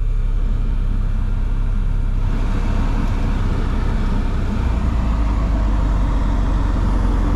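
1993 Suzuki Cappuccino's small turbocharged three-cylinder engine idling as the air-conditioning compressor kicks on. The idle, held up near 1200 RPM because the idle air control has been lost, sags under the compressor load toward 800–900 RPM; the low engine note grows heavier partway through.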